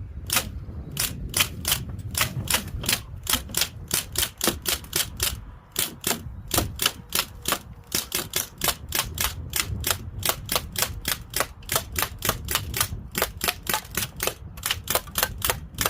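Umarex MP40 CO2 BB gun fired semi-automatically as fast as the trigger is pulled, about four sharp cracks a second with the blowback bolt cycling on each shot, with a brief pause about six seconds in; the string of shots runs until the magazine is empty.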